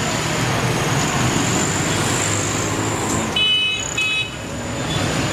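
Steady street traffic noise with a faint high whine, and two short vehicle horn toots in quick succession about three and a half seconds in.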